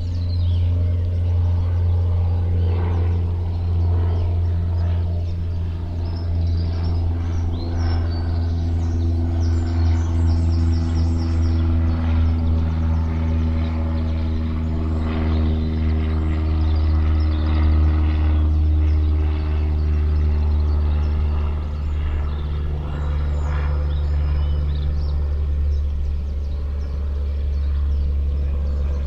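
A steady low engine-like hum whose pitch drifts slowly, with a few faint bird chirps above it.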